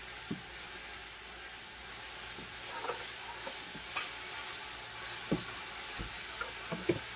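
Battered chicken livers deep-frying in hot oil: a steady sizzle with a few scattered sharp pops. The popping is light, since the livers were pricked with holes to keep them from popping.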